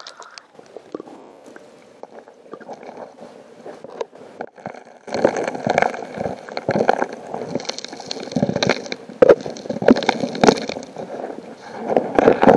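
The suction nozzle of a 2-inch GoldiBox electric backpack dredge pulling water and gravel off the streambed, heard underwater: a gurgling rush with a clatter of stones. It is quieter for the first few seconds, then loud and irregular from about five seconds in as gravel is drawn into the nozzle.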